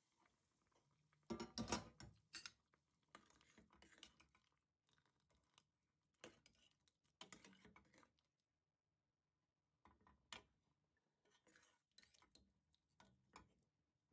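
Faint, irregular clicks and light knocks in a quiet room, a little louder about two seconds in.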